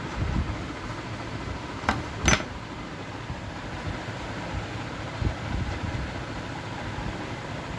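Steady hiss with scattered low thumps, and two sharp clicks about two seconds in.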